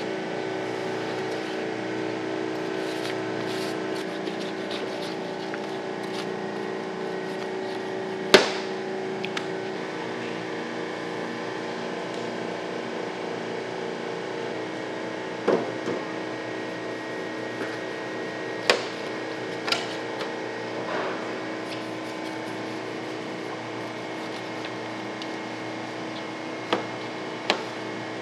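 Steady mechanical hum with a handful of sharp knocks spread through it, the loudest about eight seconds in: a big knife chopping through a shark and pieces knocking on a stainless-steel cutting table.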